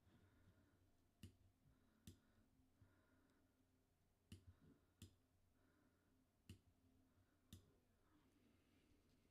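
Faint computer mouse clicks, about six of them spaced irregularly, over a faint steady low hum of room tone.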